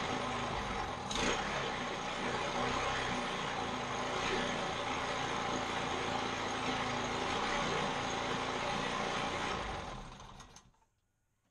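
Small single-cylinder OHV lawnmower engine, converted from vertical to horizontal shaft, running steadily on a bench test, with a brief knock about a second in. It is shut off about ten seconds in and runs down to silence within a second.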